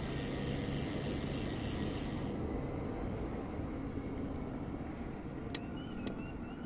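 Street traffic: a steady rumble of passing vehicles, with a hiss for the first two seconds or so and a few faint clicks near the end.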